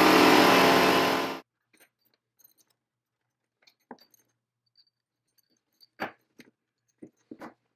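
Cordless rotary tool running, cutting off sharply about a second and a half in. Then a few light metallic clicks as small steel pins, cotter pins and a chain are handled on a wooden bench.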